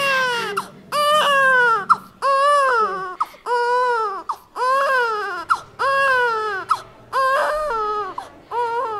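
Newborn baby crying just after birth: a string of loud wailing cries, about one a second, each falling away in pitch at its end.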